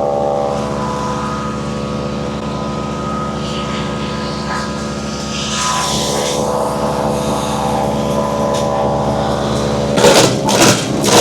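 MechMaxx B200 8-inch wood chipper's engine running steadily under load while a thick branch is fed through. About ten seconds in, loud repeated knocks start, roughly two a second.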